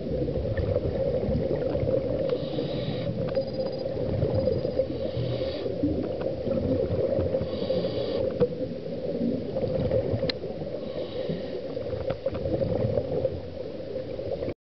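Scuba diver's regulator breathing, heard through an underwater camera housing: four hissing inhales a few seconds apart, with gurgling exhale bubbles between them, over a steady low hum. One sharp click about ten seconds in.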